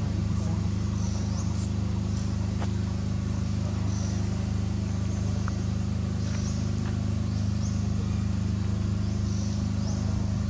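A steady low engine hum, with faint short high chirps now and then over it.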